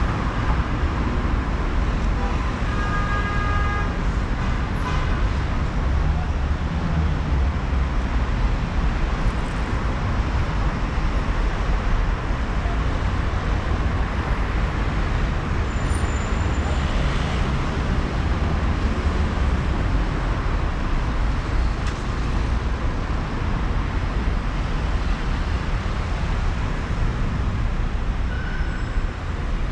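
Steady city street traffic noise with a low rumble, and a short high-pitched tone about three seconds in.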